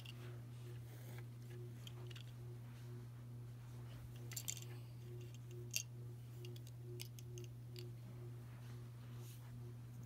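Scattered faint clicks and light rattles of plastic Lego pieces being handled and set down, the sharpest about halfway through, over a steady low hum.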